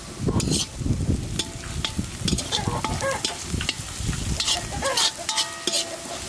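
A metal spoon stirring and scraping chopped onions, ginger, garlic and green chillies as they sizzle in oil and ghee in a wok, with repeated short scrapes and knocks of the spoon against the pan.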